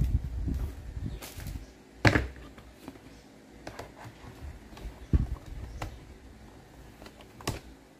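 A tablet, its cardboard box and folding cover being handled: scattered clicks and knocks, the loudest about two seconds in, with low rumbling handling noise at the start.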